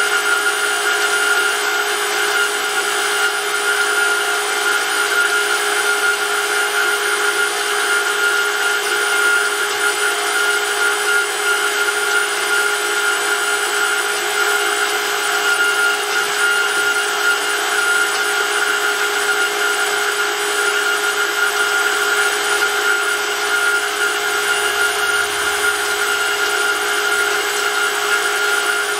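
Electric motor driving a hydraulic oil pump, running at a steady speed with a constant whine and no change in pitch.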